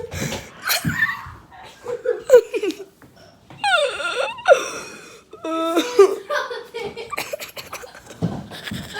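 People laughing hard, broken by wordless cries and yelps whose pitch slides up and down. The outburst is a reaction to a mouthful of heavily salted egg.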